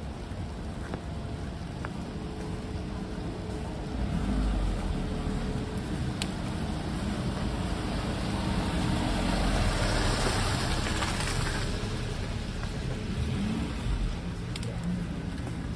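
Cars driving slowly past through slush, engines running low and tyres swishing through the wet snow. The loudest pass swells up about ten seconds in.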